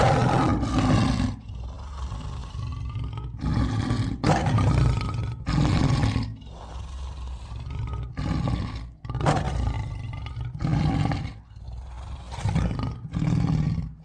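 Lion roaring: a long run of about ten loud roars, with quieter stretches between them.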